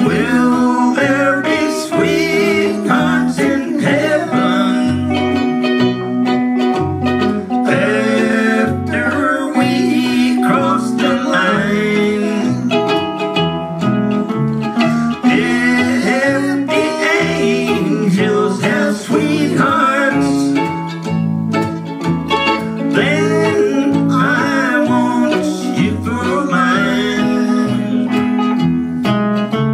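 Country string trio playing an instrumental break: archtop electric guitar and mandolin picking a melody over a plucked upright bass line.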